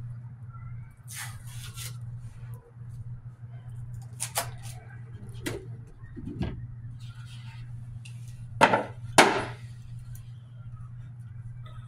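A few knocks and bumps of a black cover box being lifted off a green soap loaf mould and set down on the table, the two loudest knocks close together about nine seconds in, over a steady low hum.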